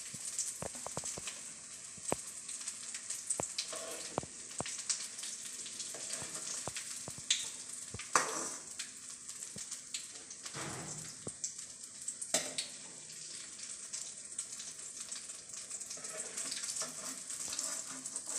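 Hot oil sizzling and crackling as breadcrumb-coated potato rolls fry, with frequent sharp clicks and pops throughout.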